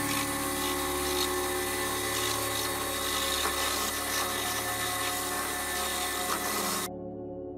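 Milling machine's end mill cutting a slot into a brass tube: a steady high whine with a cutting hiss, which stops abruptly about seven seconds in.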